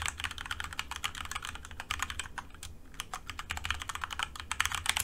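Fast typing on a computer keyboard: a quick run of key clicks with a short pause a little past halfway, over a low steady hum.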